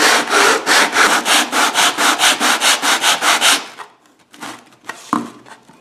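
A Depron foam part rubbed back and forth on a sheet of coarse sandpaper laid flat, sanding its base square: quick even scratchy strokes, about four a second, that stop a little past halfway. A couple of faint knocks follow as the piece is handled.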